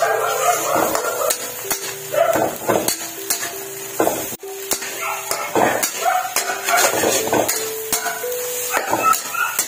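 Metal spatula scraping and knocking against a wok, stirring and breaking up egg and bitter gourd as they fry, in repeated short strokes. A simple background music melody runs underneath.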